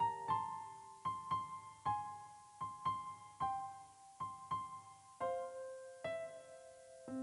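Background piano music: a slow melody of single struck notes, about two a second, each ringing and fading before the next.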